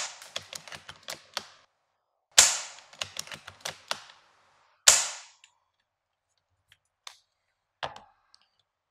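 Three sharp shots from a Steyr Scout bolt-action airsoft rifle fired without a barrel extension, about two and a half seconds apart. The first two are each followed by a quick run of clicks, and two lighter knocks from handling the rifle come near the end.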